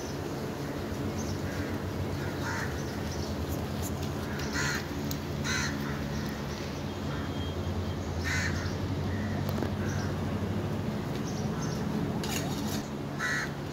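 Crows cawing in short calls, repeated about half a dozen times, over a steady low mechanical hum.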